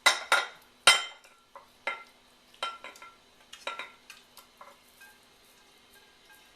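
A serving spoon clinks against the cooking pot as buttered potatoes are scooped into a serving bowl. Three loud metallic knocks come in the first second, then single, fainter clinks about once a second that die away after about five seconds.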